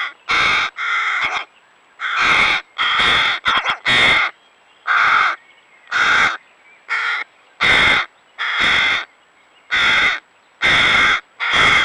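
Hooded crow fledglings begging for food: a dozen or so harsh, drawn-out caws, about one a second.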